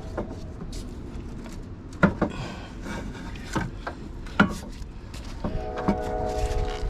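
Hand work on a van's A/C blower parts: a handful of sharp knocks and clicks, with rubbing and rustling between them as pieces are handled and worked into place. A short steady drone sounds near the end.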